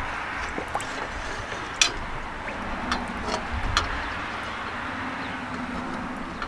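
Pressurised steel lantern tank being lowered into a bucket of water: the water sloshes and bubbles, with several sharp little clicks over a steady hiss. The bubbling is air escaping through a leaking fuel-cap gasket.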